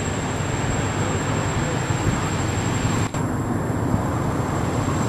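Steady outdoor rumbling noise with a faint high whine above it, dipping briefly about three seconds in.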